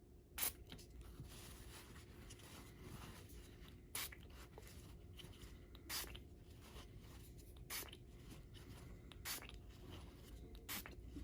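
Faint handling of a paper shop towel wrapped around a foam RC tire, with about six short crackles of the paper spread through.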